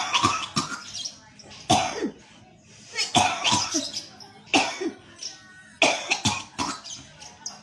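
A person coughing and hacking hard in repeated fits about a second apart, each fit sudden and dropping in pitch: forced coughing to bring up the phlegm and mucus loosened by gurah herbal nose drops.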